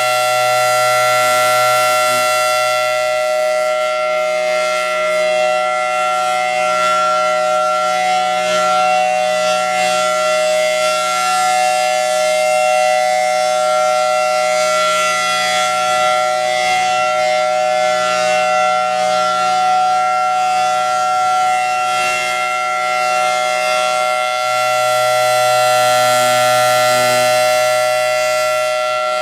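Federal Signal Thunderbolt 1000T outdoor warning siren sounding the steady alert signal, one loud, steady tone. It swells a little near the start and again about 25 seconds in.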